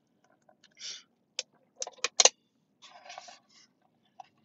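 A few short clicks, one louder a little past two seconds in, and two brief soft rustles, like small handling noises, with no speech.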